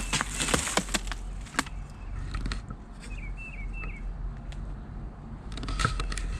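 Footsteps crunching and snapping over dry leaves, sticks and loose rotten boards, busiest at the start and again near the end. A small bird chirps a few short notes about halfway through.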